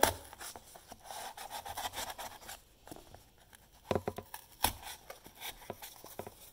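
The closed blades of a pair of scissors sawing and scoring along the cut line in corrugated cardboard, making a quick, scratchy rasping of steel on paper. There are a couple of sharper clicks around four seconds in.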